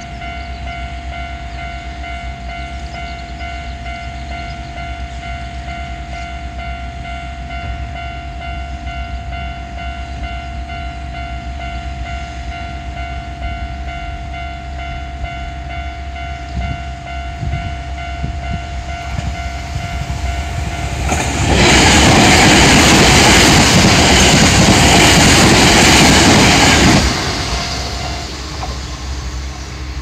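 A Japanese level-crossing warning bell rings steadily, the electronic "kan-kan". About two-thirds of the way through, a Kyoto Municipal Subway train runs past for five or six seconds, a loud rush of wheels on rail. The bell stops shortly after the train has gone.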